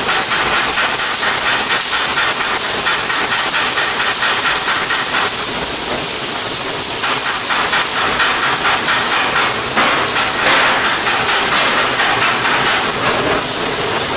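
Wire-fed gas-shielded (MIG/MAG) arc welding on steel plate: the arc gives a steady, loud hiss with a dense, fast crackle as a bead is laid.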